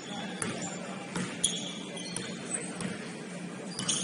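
A basketball bouncing on a hardwood gym floor as a player dribbles up the court, a few irregular thuds, with short high sneaker squeaks.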